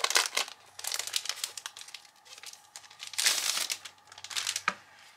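Clear plastic packaging crinkling in several bursts as a pad of patterned scrapbook paper is pulled out of its cellophane sleeve and handled, with a sharp click near the end.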